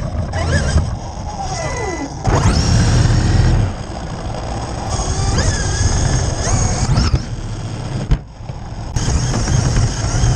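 Music with the whine of an electric RC buggy's brushless motor, a Losi DBXL-E, gliding up and down in pitch as it is throttled. The sound changes abruptly several times, as if clips were cut together.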